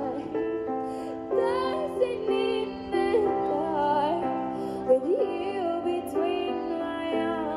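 A young woman singing a slow, tender ballad into a microphone, amplified through a small Roland Cube busking amp, over sustained backing chords.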